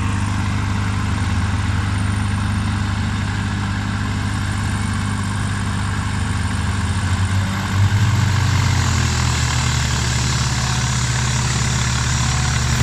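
Diesel engine of a Liebherr 926 excavator running steadily; about eight seconds in its pitch and level rise a little as the engine picks up speed.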